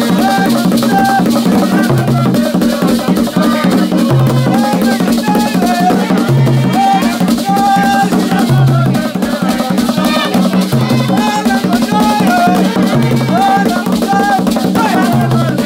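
Music with a fast shaker rhythm running over a bass line that changes note every second or so, and a melody line on top.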